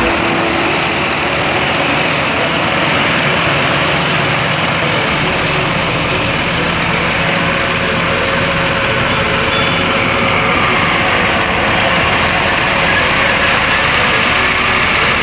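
Yanmar AW6120 rice combine harvester working through standing rice, its diesel engine and cutting and threshing machinery running steadily at a constant, loud level.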